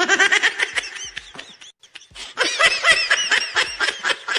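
High-pitched laughter in rapid pulses: one bout, a short break about two seconds in, then a second, fuller bout.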